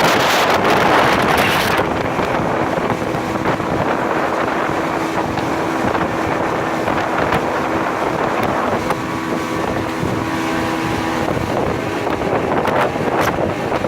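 Motorboat engine running, with wind buffeting the microphone. The wind noise is heaviest in the first two seconds, and a steady hum from the engine runs through the middle.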